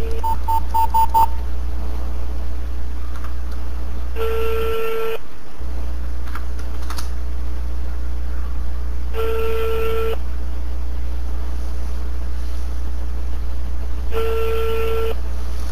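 Phone keypad beeps in the first second or so, then a telephone ringback tone: three one-second tones about five seconds apart, over a steady low hum. The call is ringing unanswered.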